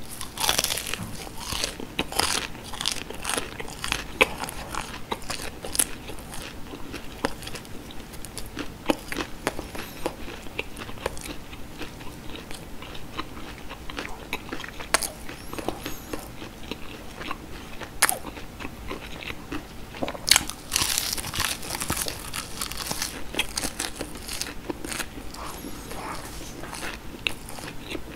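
Breaded fried cheese sticks being bitten and chewed close to the microphone: crisp crunching from the coating, with a denser crunch near the start and again about twenty seconds in, and steady chewing with wet mouth clicks between.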